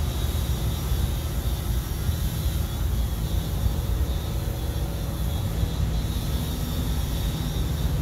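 Steady running noise of a pressure washer cleaning a water tower: a constant low rumble with hiss on top.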